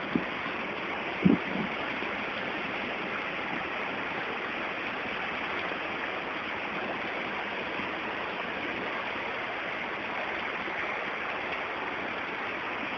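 Floodwater rushing steadily in a flooded street, with two short knocks in the first second and a half.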